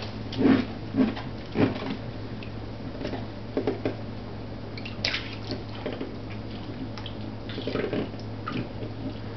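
Water splashing and dripping in a shallow baby bath as a baby is washed by hand, in irregular small splashes a second or two apart, over a steady low hum.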